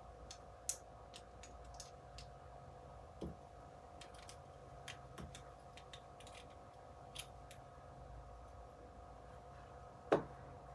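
Faint, scattered clicks of plastic LEGO bricks being handled and pressed together, with a louder clack near the end, over a steady faint hum.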